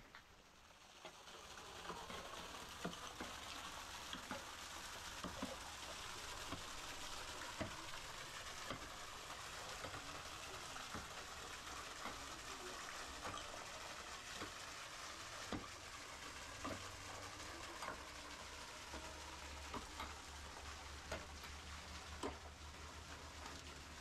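Thin waterfall splashing onto a rock in a steady hiss that swells in over the first second or two, with sharp knocks about once a second from a pickaxe chipping at the stone under the falling water.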